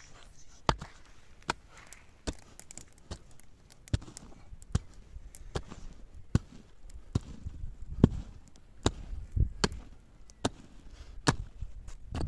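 Mattock blade striking into dry, stony soil over and over, about one blow every 0.8 seconds, each a sharp crack with a dull thud of earth beneath, loosening the ground in a trench.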